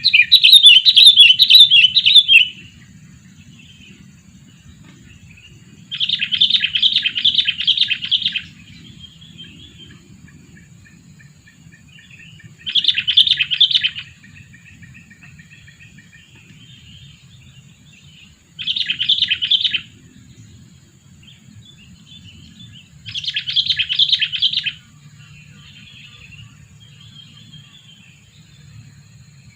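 Sooty-headed bulbul (kutilang) calling: five loud bursts of rapid, chattering notes, each a second or two long and about five or six seconds apart, with softer calls in between. The calls come from a decoy bulbul used to lure wild bulbuls.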